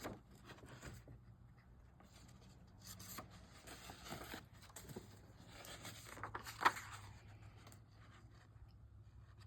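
Sheets of paper being handled: soft rustling and rubbing as vintage book pages are moved and leafed through, with one sharper rustle about two-thirds of the way through.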